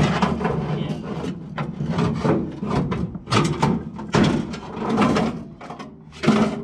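Irregular clanks and scrapes of rusted body sheet metal on a 1936 Ford coupe being pried and worked loose where brass brazing holds it.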